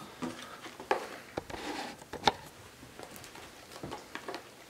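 Hands handling a small cardboard retail box and a plastic box cutter: scattered small clicks and taps, with a brief scratchy scraping about one and a half to two seconds in.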